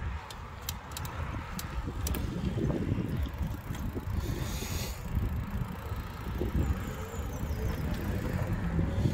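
Wind and road rumble picked up by a phone mounted on the handlebars of a moving Carrera Kraken mountain bike, with scattered sharp clicks in the first couple of seconds. A car engine rising in pitch is heard near the end.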